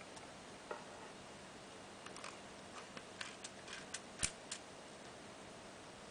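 Zorki 4 35mm rangefinder camera's mechanism clicking as its top-plate knobs are turned: a run of small, sharp mechanical clicks, with one louder click a little after four seconds in.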